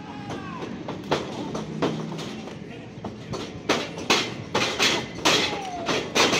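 A string of sharp thuds and slaps from wrestlers' bodies and feet hitting the ring and each other, a few at first and then coming quickly one after another from about halfway through, over a steady low background rumble.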